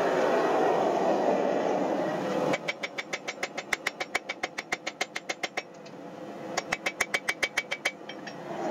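A hand hammer strikes the red-hot iron axe head on a steel anvil in two quick runs of ringing blows, about seven or eight a second, with a short break between them. Before the hammering there is a steady rushing noise, which stops suddenly.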